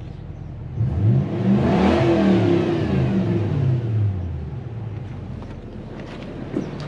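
Toyota 1UZ-FE VVTi 4.0 L V8 idling, revved once about a second in and settling back to idle a few seconds later, running on a Link aftermarket ECU with its ignition timing freshly set.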